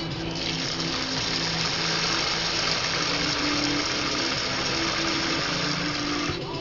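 Water running steadily into a bowl of dry rice in a sink, a constant rush that starts about half a second in and stops just before the end.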